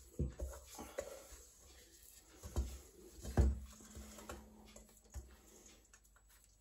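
Soft, irregular thumps and knocks of hands pressing and working shortcrust pastry dough together in a bowl, about six in all, the loudest about three and a half seconds in.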